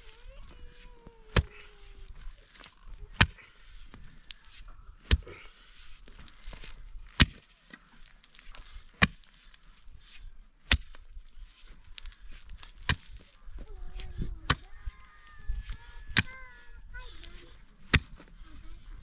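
Pickaxe striking stony soil: about ten sharp blows, one roughly every two seconds, as the ground is broken up for digging.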